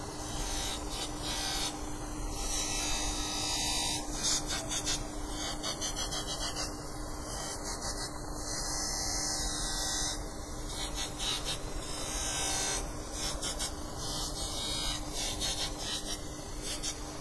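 Bench buffer's motor running with a steady hum while a small piece of sheet metal is pressed against its spinning buffing wheel to clean it up. The rub gives a rasping hiss that swells and fades as the metal is pushed on and eased off.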